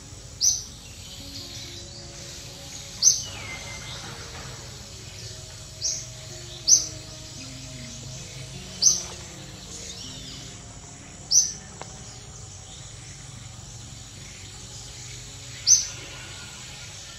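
Short, sharp, high bird chirps, single notes repeated at uneven intervals of about two to three seconds, over a steady forest background hiss.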